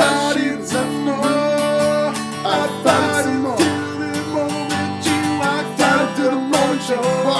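Acoustic guitar strummed in a steady rhythm, with singing over it.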